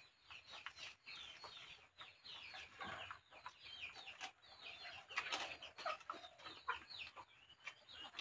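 Faint bird chirping: many short, quick, falling chirps repeating throughout.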